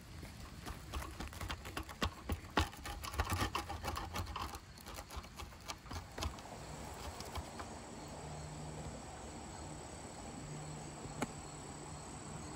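A knife cutting through a crisp, charred pizza crust on a wooden cutting board: a quick run of crackles, crunches and knocks for the first six seconds. After that, insects keep up a steady high-pitched drone.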